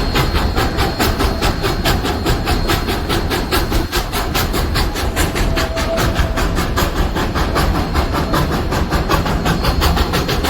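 Train running on the rails with a fast, even, rhythmic clatter and steady rumble.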